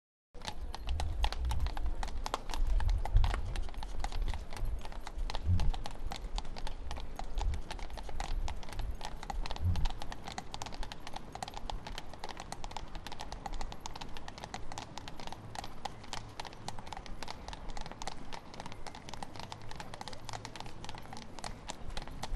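Horses' hooves clip-clopping as they pull an open landau carriage, a quick, dense run of hoof strikes over the low rumble of the moving carriage, heavier in the first half.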